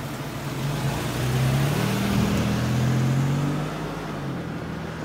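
Toyota Sienna minivan on the move: engine and tyre noise, the low engine note swelling and rising slightly for a couple of seconds as it speeds up, then easing off about three and a half seconds in.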